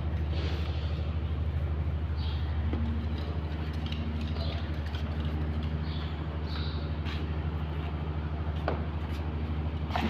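Steady low mechanical drone, like a motor or engine running, with birds chirping over it and a couple of sharp clicks near the end.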